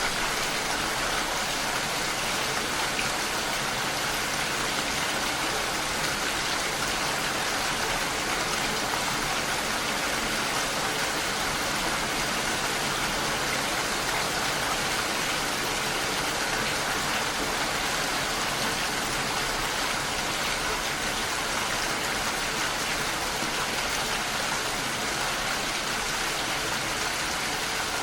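Steady rain falling and pattering on surfaces, an even hiss of drops with no breaks or thunder.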